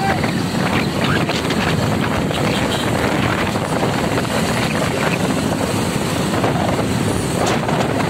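Motorcycles riding along a road: steady engine noise mixed with wind rushing over the microphone, an even, unbroken sound.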